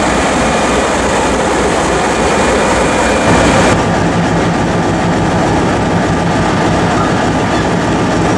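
Train hauled by an MLW/ALCO C424 diesel locomotive running, a loud steady rumble with rail noise. A little under four seconds in, the hiss in the upper range drops back while the low rumble carries on.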